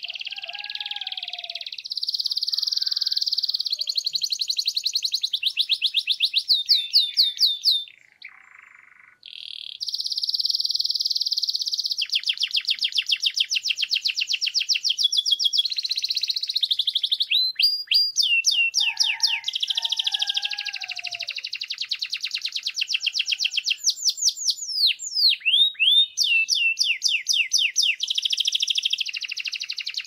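Grey domestic canary singing a long, continuous song of fast trills and rolls. There is a short break about eight seconds in, and a few quick downward-sweeping notes come in the second half.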